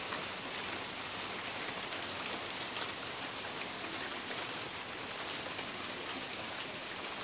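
Steady rain falling on a wet concrete walkway and puddles, with faint scattered drip ticks.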